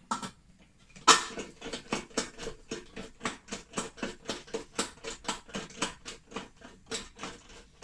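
Hand screwdriver driving a machine screw that holds the speaker's metal amplifier can in place: a fast, even run of sharp clicks, about five a second, starting about a second in and stopping near the end.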